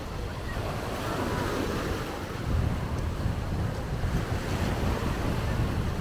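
Sea waves washing onto the beach, with wind buffeting the microphone.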